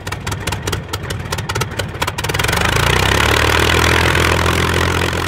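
Piston aircraft engine starting: rapid cranking and firing clicks for about two seconds, then it catches and runs steadily and louder, beginning to fade near the end.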